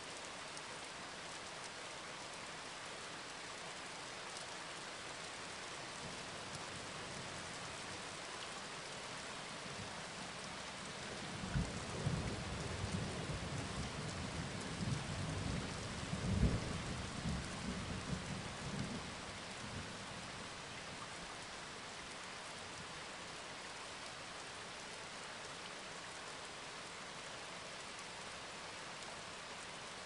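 Steady rain falling, with a low rolling rumble of thunder that starts about twelve seconds in and lasts roughly eight seconds.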